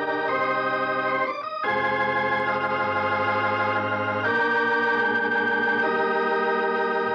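Organ music playing slow, held chords, with a brief break about a second and a half in and a change to a new chord just after four seconds.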